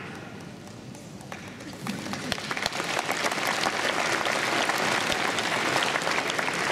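Audience applauding, starting about a second in and building into steady clapping.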